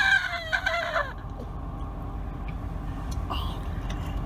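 A person's shrill, excited squeal of delight that falls in pitch and trails off about a second in, followed by a low, steady rumble of background noise.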